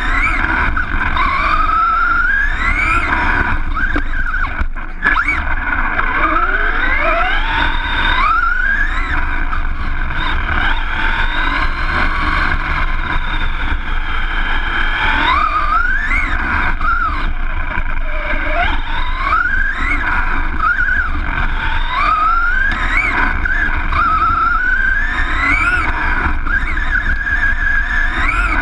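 An RC car's motor heard from on board as the car races on dirt. Its high whine climbs in pitch again and again as it accelerates and drops back between the climbs, over a steady low rumble.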